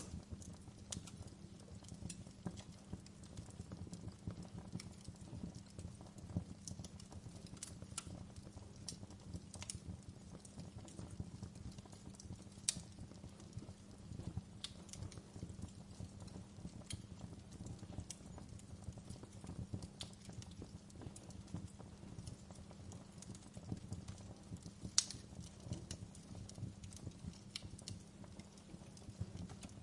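Wood fire crackling: irregular sharp snaps and pops over a steady low rumble, with two louder pops, one near the middle and one further on.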